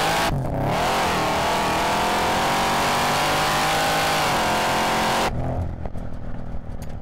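Supercharged 6.0-litre V8 car engine accelerating hard. Its pitch climbs, breaks off briefly for a gear change just after the start, then climbs again and holds high. It cuts off abruptly at about five seconds, leaving a quieter low rumble with scattered crackles.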